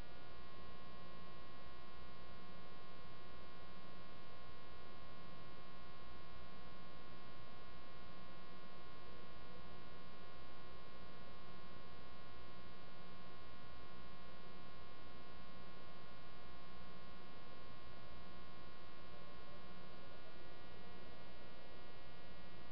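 Steady electrical mains hum with many even overtones, holding one unchanging level throughout.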